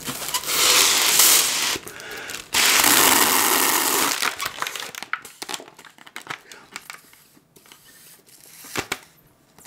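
Foil letter balloon being blown up by mouth: two long breaths of air rushing into it, the second starting about two and a half seconds in. The foil then crinkles lightly as it is handled.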